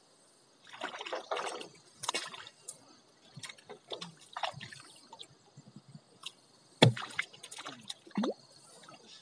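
Water splashing and sloshing in irregular bursts, with knocks and one sharp knock about seven seconds in.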